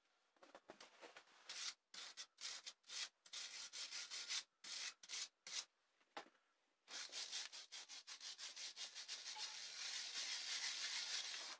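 Rust being scrubbed off the iron frame of a book press with a hand tool, the rust loosened by electrolysis and coming away easily. Short separate scratchy strokes for the first six seconds, then after a brief pause steady, rapid scrubbing.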